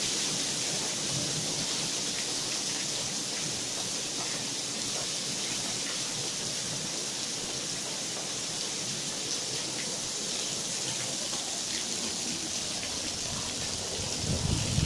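Heavy rain pouring steadily onto a tiled patio, lawn and pool: an even hiss. A louder low rumble joins near the end.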